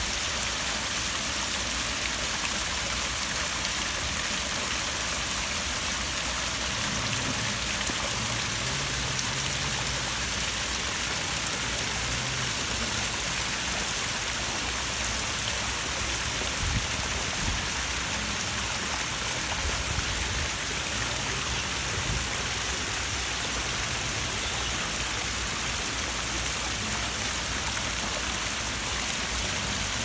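Water from a man-made rock-wall waterfall splashing steadily down the stones into a pool.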